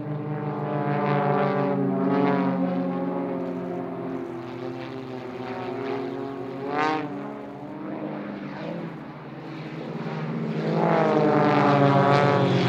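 Piston engines and propellers of four Extra 300-family aerobatic planes flying in formation, several engine notes at once. The sound swells about two seconds in, with a brief sharp rise and fall in pitch about seven seconds in. It swells louder again near the end as the formation passes, the pitch dropping.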